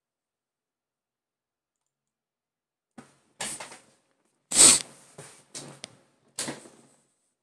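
A handful of short clicks and rustles close to the microphone, starting about three seconds in, the loudest a little past halfway.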